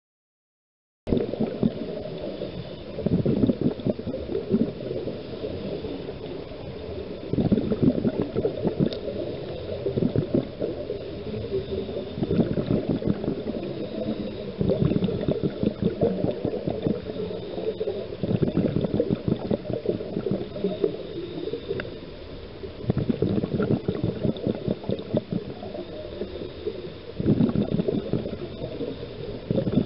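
Scuba diver's exhaled bubbles gurgling, heard muffled through an underwater camera housing, swelling into louder surges every few seconds with the diver's breathing. Starts about a second in.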